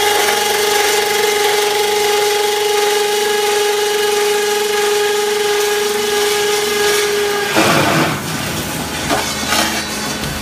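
Steel rack beam roll forming machine running with a steady, pitched whine. About three-quarters of the way through, the whine stops and a short, loud burst of noise follows, then a few sharp metallic clanks, as the cutting unit cuts the formed beam.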